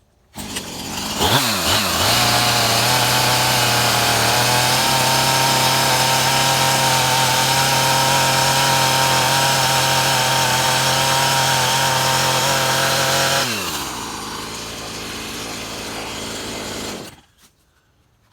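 Chainsaw driving a homemade sawmill. It comes in suddenly and revs up to full throttle, holds there steadily for about eleven seconds, then drops back to a lower speed and cuts off a few seconds later.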